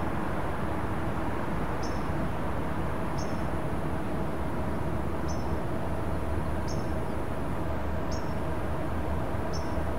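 Freight train rolling past at steady speed with a continuous low rumble, and a short high chirp repeating about every second and a half.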